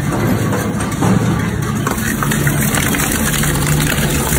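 Twin-shaft industrial shredder running steadily, its hooked rotor blades grinding and tearing apart small metal tanks with a continuous low hum and crunching.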